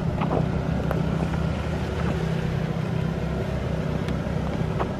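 Jeep engine running steadily at low revs as it crawls over rocks off-road, with a few faint knocks on top.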